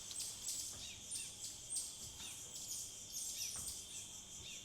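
Faint chorus of insects and birds: a steady high insect drone, with repeated short buzzy pulses and small falling bird chirps over it.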